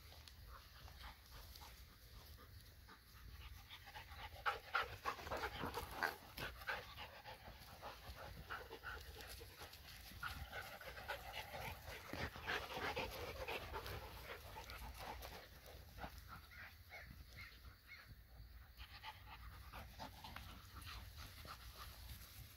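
Dogs (a Borzoi, a golden retriever and a poodle) panting and making short play sounds as they wrestle over a plush toy, picking up about four seconds in and easing off past the middle.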